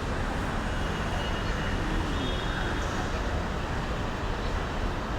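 Mumbai metro train heard from inside the carriage: a steady low rumble and rushing noise with no pauses.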